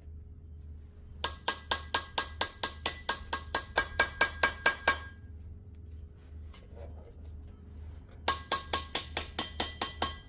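Rapid hand-hammer taps on a steel tool, about six a second with a ringing metallic clink, working around the edge of a truck's rear hub seal to drive it loose. A run of about twenty taps, a pause of a few seconds, then a shorter run of about ten.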